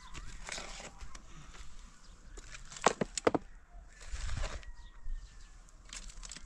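A shovel scraping into a pile of earth and stones and tossing the dirt into a metal wheelbarrow, with two sharp knocks about three seconds in.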